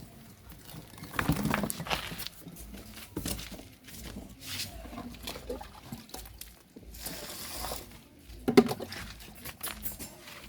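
Water poured from a container onto freshly planted grass and soil, with scattered knocks and rustles of handling.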